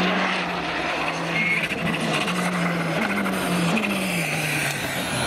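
Škoda Fabia rally car's turbocharged four-cylinder engine running hard along a tarmac stage, its note jumping up in pitch about three and about four seconds in and then sliding down, over steady tyre and road noise.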